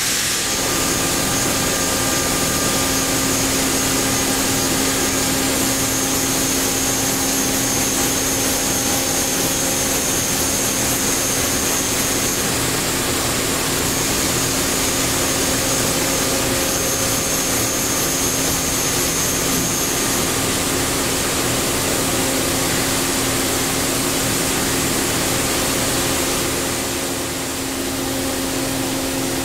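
Daewoo Puma 2000SY CNC turning center running with a steady mechanical hum and hiss and a constant low tone. A thin high whine comes and goes twice in the first twenty seconds.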